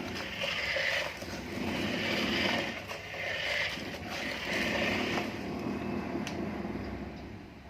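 Small electric motors of a Huina radio-controlled construction toy whirring in repeated short runs, about one a second, easing off near the end.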